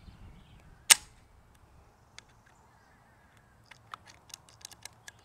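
A single shot from a Benjamin Marauder semi-automatic .22 PCP air rifle with a shrouded, baffled barrel: one sharp crack about a second in. A few faint ticks follow later on.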